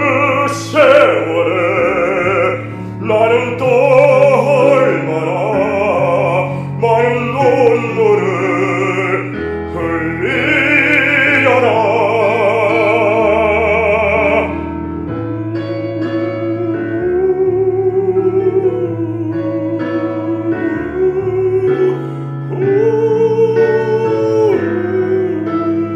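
A man singing a Korean ballad in an operatic style with wide vibrato over a backing accompaniment, holding a long note that ends about fourteen seconds in; the accompaniment then plays on alone, more softly.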